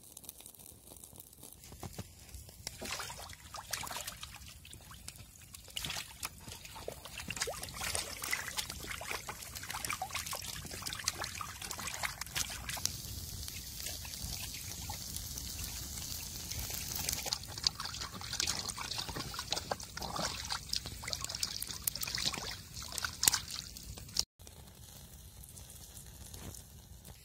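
Wood campfire of split logs catching and burning, with many sharp crackles and pops over a steady hiss that grows as the flames take hold. It cuts off suddenly about three seconds before the end.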